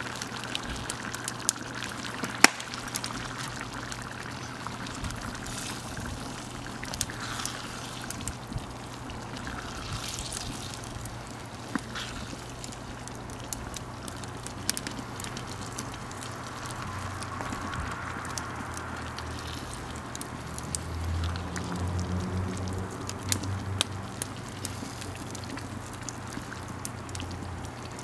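Thick curry sauce simmering and bubbling in a cast-iron Dutch oven over a wood fire, with the fire crackling in sharp clicks throughout. In the second half a wooden spoon stirs the sauce, a heavier sloshing and scraping.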